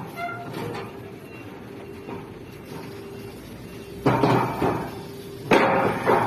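Steel beams clanging against steel as they are handled and set down on a stack: two loud metallic impacts about four and five and a half seconds in, each with a short ring.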